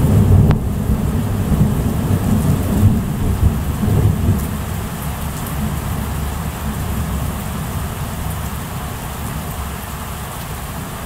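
Thunder rumbling over steady heavy rain. The rumble is loudest in the first few seconds, then slowly fades under the rain.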